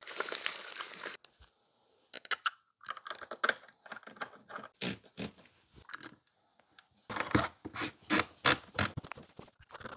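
Plastic packaging rustling and tearing as a set of sofa feet is unwrapped, then scattered clicks, scrapes and rustles as the plastic feet are screwed by hand into the base of a sectional sofa, busier again near the end.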